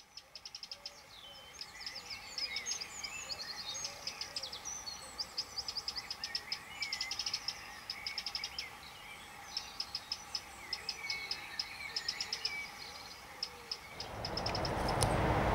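Several birds chirping and trilling in quick high twitters. About fourteen seconds in, a broad rush of outdoor noise swells up and drowns them.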